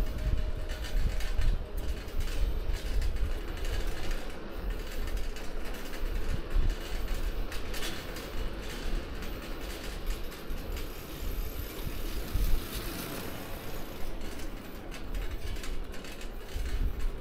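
City bicycle with a front wire basket ridden along a paved street: rattling and clicking from the bike and its basket over a steady low rumble of tyres and wind on the microphone.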